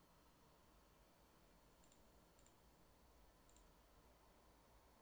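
Near silence with three faint computer mouse clicks, each a quick double tick, spaced about half a second to a second apart in the middle of the stretch.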